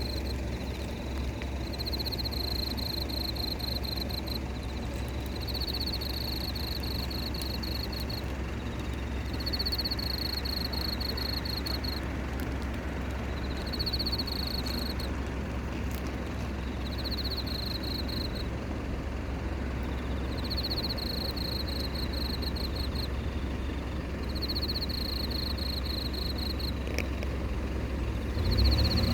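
A cricket chirping in pulsed trills about a second long, repeating roughly every two seconds, over a steady low rumble of traffic. Near the end a vehicle approaches and the rumble grows louder.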